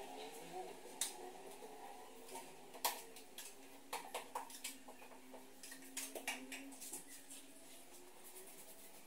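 Faint, scattered scrapes and light clicks of hand work on a plasterboard frame, a small tool worked along its edges. There are a few sharper taps near the middle and the sounds thin out toward the end.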